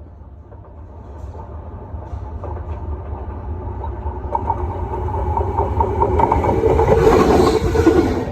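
D19E diesel-electric locomotive approaching, its engine and wheels on the rails growing steadily louder as it draws near, then cutting off abruptly.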